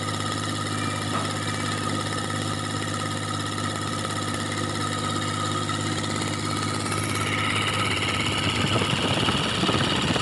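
Kubota D1302 three-cylinder diesel engine of a compact tractor running steadily, now starting and running normally once its stuck-open decompression release has been knocked back down. The engine note grows slightly louder and brighter after about seven seconds.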